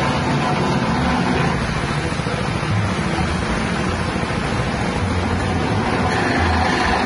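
Grass chopping machine driven by a 6.5 hp petrol engine, running steadily: a dense, even mechanical noise with a low engine throb.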